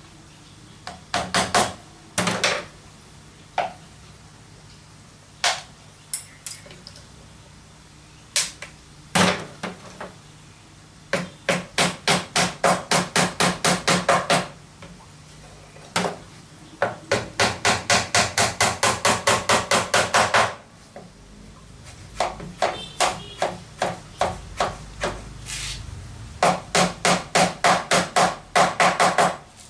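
Old-fashioned sewing machine running in bursts of rapid, even clacking, about five or six stitches a second, with single clacks and pauses between the runs.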